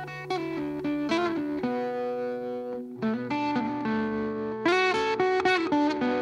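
Background music: a guitar playing a melody of plucked notes, some of them sliding in pitch.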